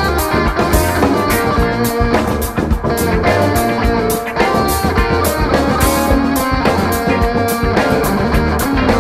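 Electric guitar playing an improvised lead line of short notes over a backing track with drums and bass.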